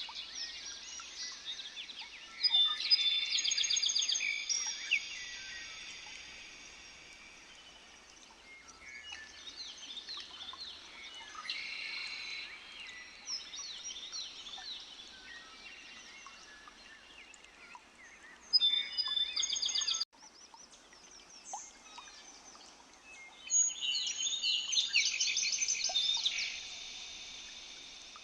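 Several birds singing and calling at once, with rapid chirps and trills; the loudest bursts of song come about 2.5 seconds in, about 18 seconds in and about 23 seconds in. The sound cuts off abruptly for an instant about 20 seconds in.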